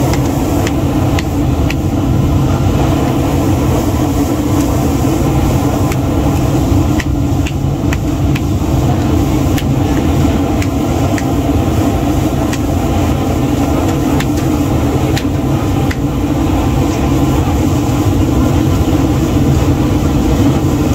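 A steady mechanical drone, like a running engine, with short sharp clicks from a large knife striking a wooden chopping stump every second or so as a fish is scaled and cut.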